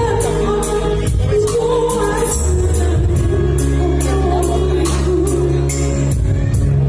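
A Gayo song: a singing voice carrying a gliding melody over a held bass line and a steady, regular percussion beat.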